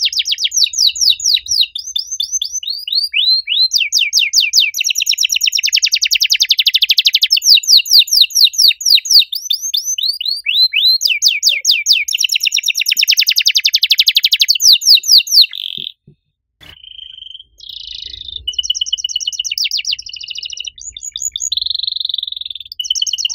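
Canary singing a loud, long song of very fast trills and rolls, one after another almost without pause. After a short break about two-thirds of the way through, it carries on with shorter, varied phrases.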